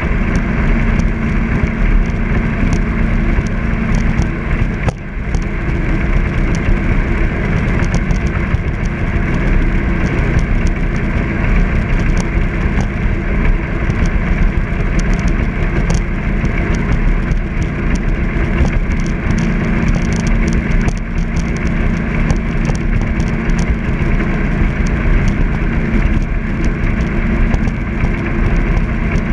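Jet boat running steadily at cruising speed: a constant engine drone under a broad rushing noise, briefly dipping about five seconds in.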